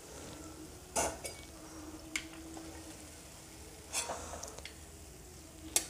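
A stainless steel perforated skimmer and spatula clinking against each other and the frying pan as fried puffs are lifted out of the oil. There are four sharp metal clinks, spaced a second or two apart.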